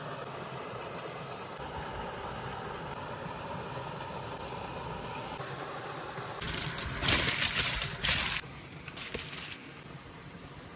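Steady rush of a small stream and waterfall; about six seconds in come loud crinkling bursts of aluminium foil being pressed over a clay casserole dish, in two spells.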